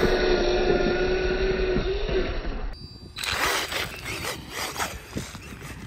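Electric motor of a Losi Promoto-MX 1/4-scale RC motorcycle whining steadily at speed, dipping a little in pitch about two seconds in, then cutting off suddenly. After a brief gap come rapid crunches and clicks of its tyres on loose dirt and gravel.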